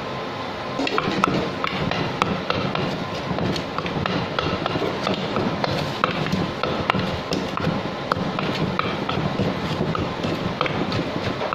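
Wooden pestle pounding in a clay mortar, lightly mashing and mixing a grilled catfish salad: uneven knocks, about two or three a second, picking up about a second in.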